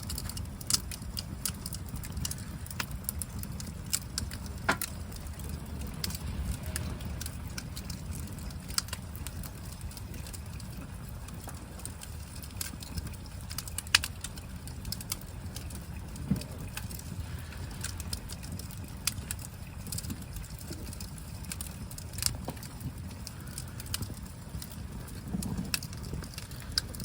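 Wood campfire crackling: scattered sharp pops at irregular intervals over a low steady rumble.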